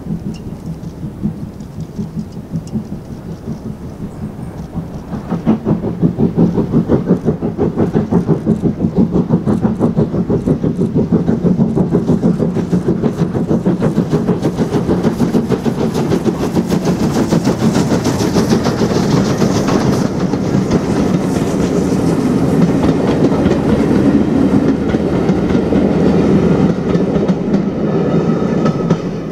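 Two Caledonian Railway steam locomotives double-heading a passenger train and working hard past at speed. Rapid exhaust beats swell about five seconds in, stay strong along with the running of the train, and die away near the end as it passes.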